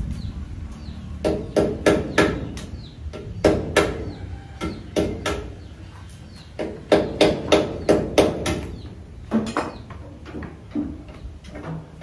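Hammering on the engine of an old jeep-type vehicle: sharp strikes in quick runs of two to four, with short pauses between.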